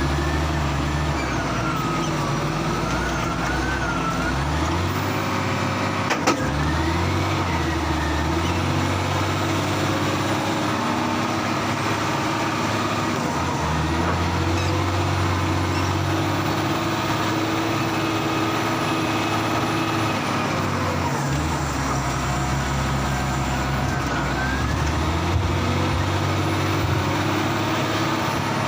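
Heavy diesel engine working under load, its revs stepping up and down several times. A thin whine wavers in pitch in the first few seconds, and there is one sharp knock about six seconds in.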